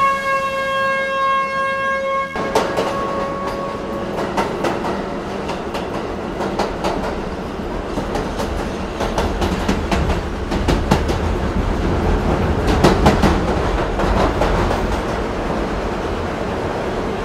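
A train horn sounds one steady note for the first two seconds or so and stops abruptly. Then a train's wheels clatter over the rails, with a low rumble that swells in the middle and then eases.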